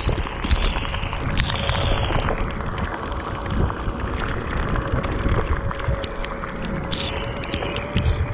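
Wind buffeting the microphone and road spray from the Weped Fold electric scooter riding through rain on a wet road, with sharp ticks of raindrops striking the camera. A thin steady whine from the dual hub motors comes in about three seconds in.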